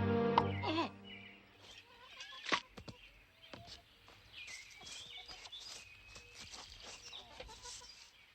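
Soft music that ends about a second in, followed by quiet outdoor ambience with birds chirping and a few sharp knocks, the loudest about two and a half seconds in.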